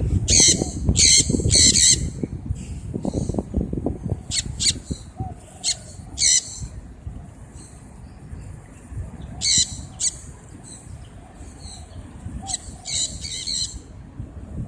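Sun conures giving loud, harsh screeching calls in short clusters: three in quick succession at the start, more scattered through the middle, and a run of calls near the end.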